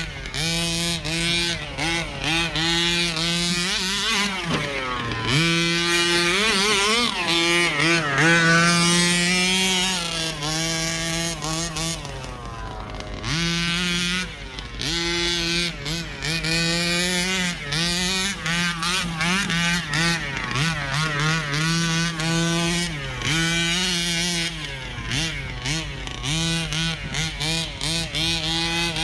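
Two-stroke gasoline engine of a 1/5 scale Rovan RC car being driven hard, its buzzing pitch rising and falling with each burst of throttle. It drops briefly to a low idle about four seconds in and again around thirteen seconds.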